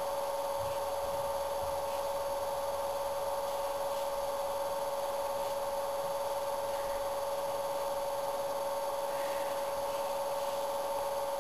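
Steady electrical hum, a constant pair of tones over a faint hiss, with nothing else standing out.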